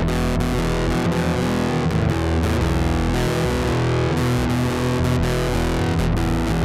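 Background music: an instrumental track led by distorted electric guitar, playing steadily.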